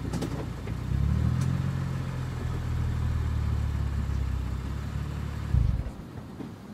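2006 Lexus IS250's V6 idling through a Greddy SE cat-back exhaust, heard right at the tailpipe. The low exhaust note steps up and gets louder about a second in, then holds steady. Near the end the engine is switched off and cuts out after a brief louder thump.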